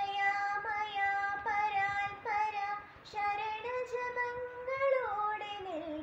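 A girl singing a Malayalam Ayyappan devotional song, holding long notes with sliding, ornamented turns between pitches.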